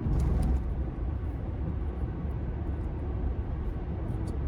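Steady low road and engine rumble heard inside a moving car's cabin, a little louder for the first half second.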